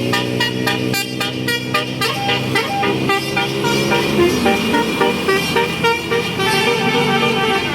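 Bus 'telolet basuri' multi-tone musical horn playing a fast melody of short, high notes, with a few longer held notes midway.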